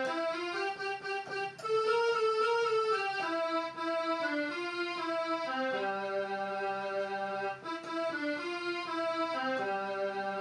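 Portable electronic keyboard playing a melody of held notes with both hands, the notes changing every half second or so over lower sustained accompaniment notes.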